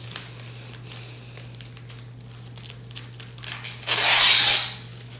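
Clear plastic self-seal poly bag being handled, with light crinkling, then one loud tearing rip about four seconds in that lasts under a second.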